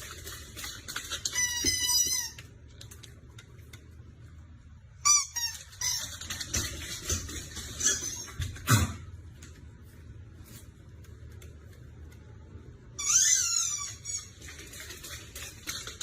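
High-pitched squeaky calls from a small animal, coming in short groups of falling cries with quiet gaps between them. A single sharp knock falls about nine seconds in.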